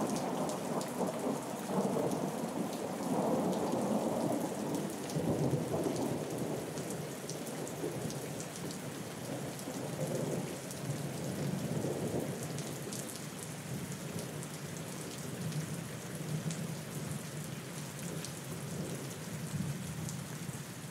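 Steady rain falling with rolling thunder, the low rumbles swelling and easing several times.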